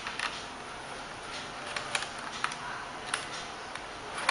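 Light, scattered clicks and ticks of a screwdriver on the plastic base of an Acer laptop as the two screws of the RAM compartment cover are undone, over a steady faint hiss.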